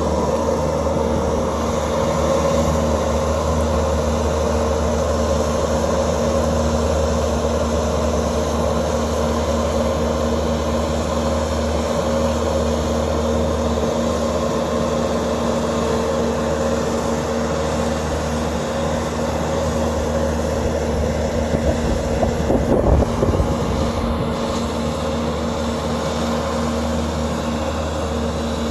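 Diesel engine of a Bobcat compact track loader running steadily at high throttle while it works a grapple through brush, with a few irregular clunks about two-thirds of the way through.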